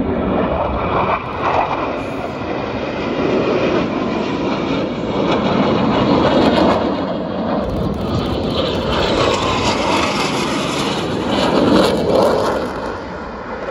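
Military jet fighters' engines passing low overhead as a loud, continuous rush of jet noise. It swells about halfway through and again near the end, then starts to ease off.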